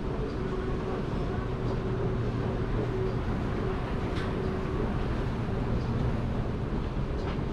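Steady low mechanical rumble and hum, with a held tone over the first half and a few faint clicks.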